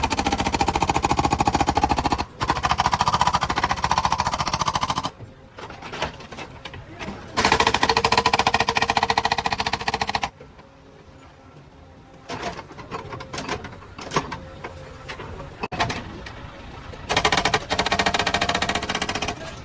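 Rapid mechanical hammering, such as a hydraulic breaker hammer makes when it demolishes concrete or masonry. It comes in three runs of a few seconds each and stops twice, with a quieter engine-like sound in between.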